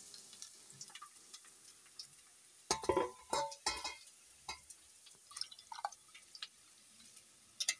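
A hand working raw peeled prawns in water in a metal pot: small wet splashes and drips, with scattered clicks against the metal, the loudest cluster about three seconds in.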